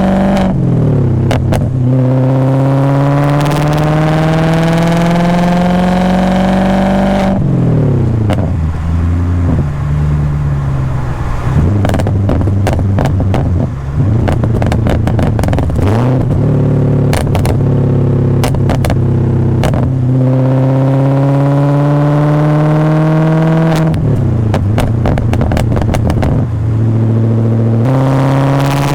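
BMW E39 540i's 4.4-litre V8 through a straight-piped exhaust with a Summit muffler, pulling hard under acceleration. The revs climb and drop sharply at each upshift, several times. In the middle there is a stretch of lower, uneven revs with many sharp crackles.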